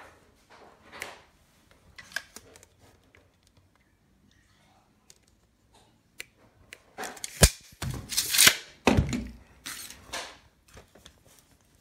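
Handling noise from a metal tape measure and a plastic lighter on a tabletop: faint clicks and rubs, then a run of louder knocks and scrapes starting about seven seconds in as things are moved and set down.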